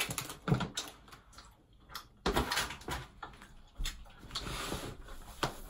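Small handling noises: scattered light clicks and knocks, with a soft rustle of a crinkly snack wrapper being handled near the end.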